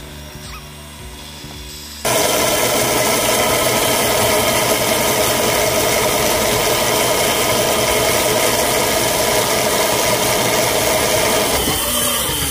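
Powered line-spooling machine running at speed, winding braided line onto an Avet reel with a steady motor whine. It gets much louder suddenly about two seconds in and eases off near the end.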